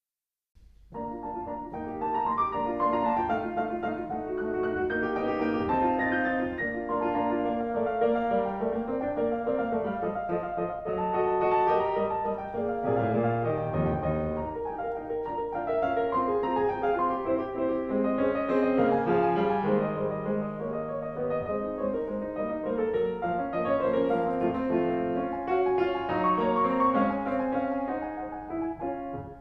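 Piano music, starting about half a second in after a brief silence.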